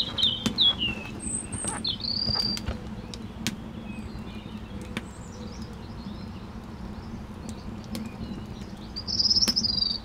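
Small birds chirping in short, high, sliding phrases, with a louder burst of song near the end. Sharp clicks of wood crackling in a small brick stove fire sound underneath, over a steady low hum.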